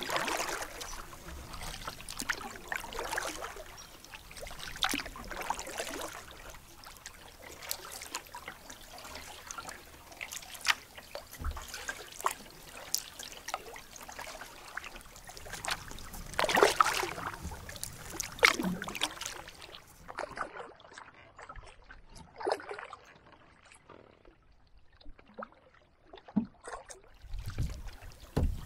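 Canoe paddling on calm water: the paddle dips and water splashes and trickles off the blade in irregular strokes, with a louder splash a little past halfway. The last third is quieter, with only scattered drips.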